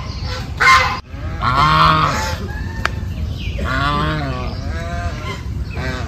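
Domestic geese honking: a short honk, a sudden cut about a second in, then two longer, wavering honks.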